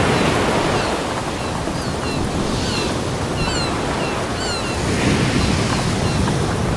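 Ocean surf washing on a beach, a steady rush of breaking waves that swells again about five seconds in. Short high chirps are scattered through the first few seconds.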